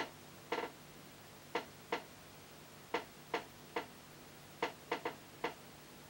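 Craft knife cutting an airbrush mask on paper: a string of short, sharp ticks at uneven intervals, about eleven in six seconds.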